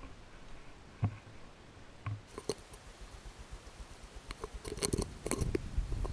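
Footsteps crunching on a dirt trail: a few scattered steps at first, then steadier, denser crunching from about four and a half seconds in.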